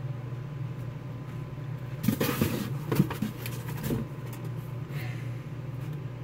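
Objects being handled and shifted while an item is taken out of a box: a clatter of rustles and knocks lasting about two seconds, the loudest knock about three seconds in, over a steady low hum.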